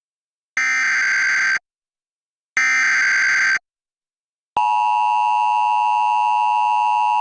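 Emergency Alert System tones: the second and third of the three SAME header data bursts, each about a second long with a second of silence between, then, a little past halfway, the steady two-tone EAS attention signal begins and holds.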